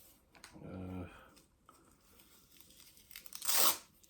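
A man's short low hum about a second in, then a brief loud rustling swish of handling noise near the end.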